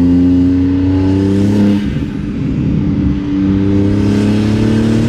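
Turbocharged engine of a BMW M car accelerating in third gear, its note climbing, then easing off about two seconds in as the blow-off valve vents, and pulling again from about three seconds.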